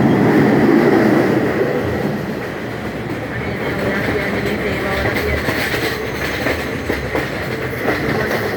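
Train running on the rails, a steady rumble that eases a little after about two seconds.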